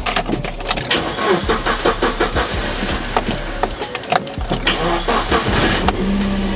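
Geo Tracker's engine starting, running rough and uneven with irregular sputters, then settling into a steadier run near the end.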